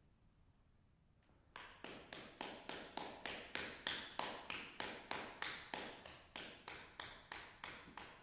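Audience applause in a hall. It starts about a second and a half in, out of near silence. The claps fall in an even rhythm of about three and a half a second, each with a short echo, and they thin out near the end.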